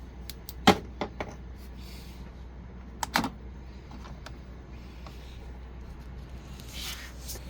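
Sharp clicks of buttons being pressed on an Epson ET-2760 printer's control panel while stepping through its maintenance menu to head cleaning. There are three clicks close together about a second in, the first the loudest, and two more about three seconds in, over a low steady hum.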